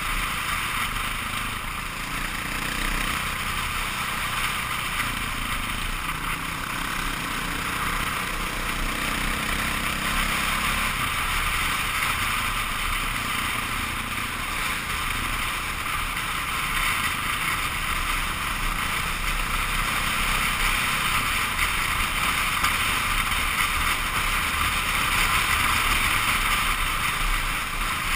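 KTM 530 EXC single-cylinder four-stroke dirt bike engine running at a steady cruise on a gravel road, largely buried under a constant rush of wind on the helmet-mounted camera.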